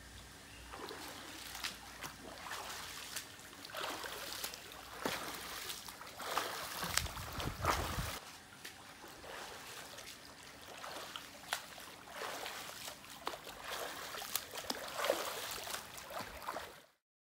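Splashing of a swimmer doing freestyle in place against a rope tether in a pool: arms slapping into the water in a repeated stroke rhythm over a constant wash of churned water. It cuts off suddenly near the end.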